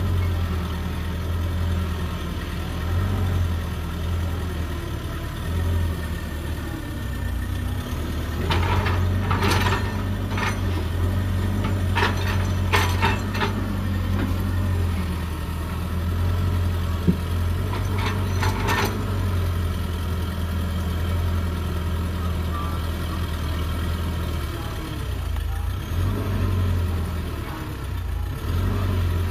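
Heavy excavator's diesel engine running steadily with a low hum, broken by three short clusters of sharp knocks in the middle stretch.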